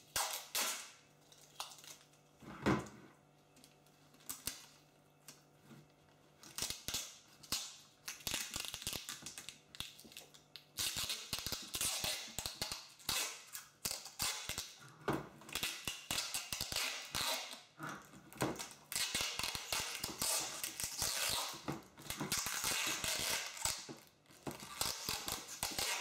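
Clear adhesive tape being pulled off its roll and wrapped around a plastic electric kettle: crackling, ripping tape sounds with handling clicks, sparse at first and coming in longer crackly spells from about the middle on.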